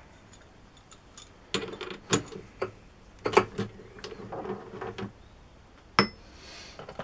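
Steel packing pieces being set under a steel plate on a machine table: a scatter of sharp metal clinks and knocks, the loudest about a third of the way in and one more near the end.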